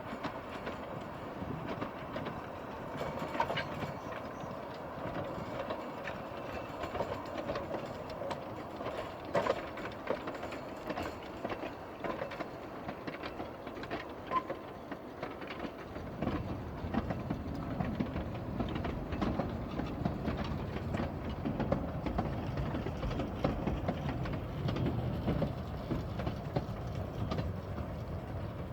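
Narrow-gauge train hauled by a Hunslet Wren steam locomotive running along the line, its wheels clicking over the rail joints. About halfway through, a deeper rumble joins in.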